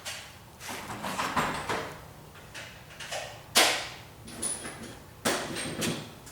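Steel hand tools clanking and scraping, sockets, extension and wrench knocking on each other and on the frame while motor-mount bolts are worked loose. The loudest is a sharp metallic clank about three and a half seconds in, with another just past five seconds, and some of the knocks ring faintly.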